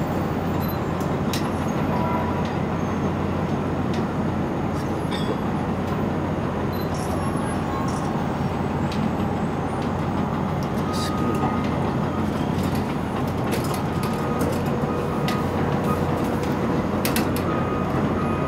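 Komatsu PC228LC-8 excavator's diesel engine running steadily as it digs, with scattered sharp clanks and knocks from the work, several of them close together near the end.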